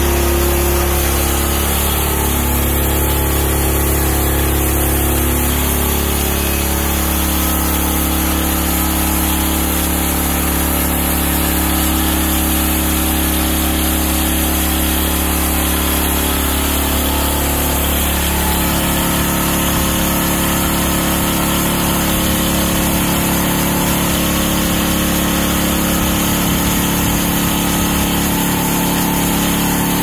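Small gasoline engine on a homemade portable band sawmill running steadily, with a slight change in its note about two-thirds of the way through.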